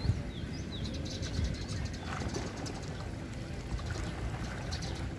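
Small birds chirping, with a few quick falling calls in the first second and rapid high twitters, over a steady low rumble.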